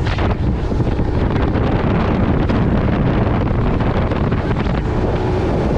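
Fishing boat running at speed across open water: heavy wind buffeting on the microphone over the steady rush of the engine and the water along the hull.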